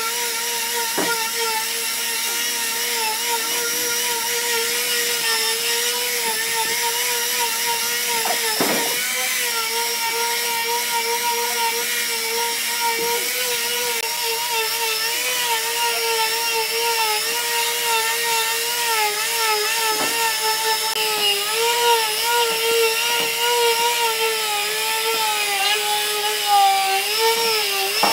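Electric palm orbital sander running continuously as it is pushed across a wooden board, a steady motor whine whose pitch wavers slightly under hand pressure, with a few faint knocks.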